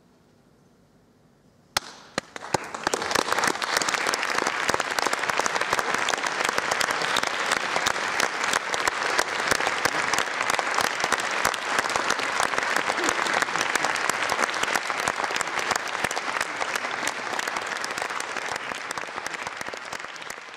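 After a short near-silence, a concert-hall audience breaks into applause all at once, dense steady clapping that starts to thin out near the end.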